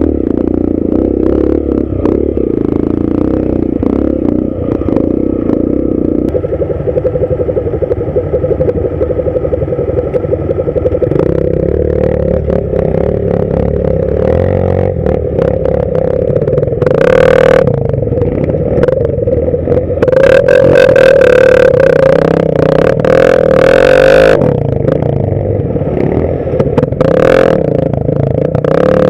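Dirt bike engine running at low speed up a rocky trail climb, the revs shifting up and down. In the second half, brief harsh bursts of noise and knocks break over the engine.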